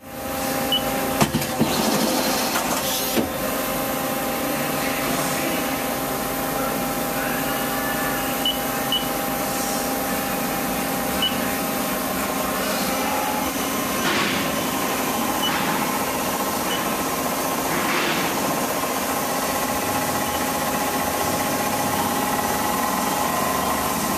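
1996 Mori Seiki SL-25MC CNC lathe running, a steady machine hum with several steady whining tones. A few clicks and knocks come in the first few seconds.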